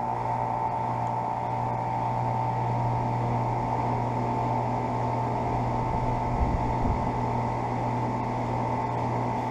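2016 Carrier 3-ton central air-conditioner condenser running just after startup: a steady hum from its Copeland scroll compressor and condenser fan. A brief low rumble comes about six seconds in.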